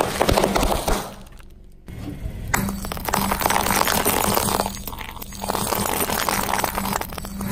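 A car tyre crushing crunchy objects: a dense run of crackling and snapping that dies away about a second in, then comes back thickly about two and a half seconds in.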